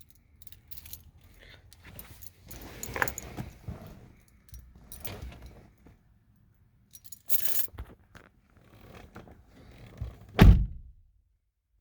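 Car keys jangling with a run of clicks, light knocks and rattles, and one heavy thump about ten seconds in; no starter cranking or engine running is heard, as in a 2011 Nissan Juke with a no-crank fault.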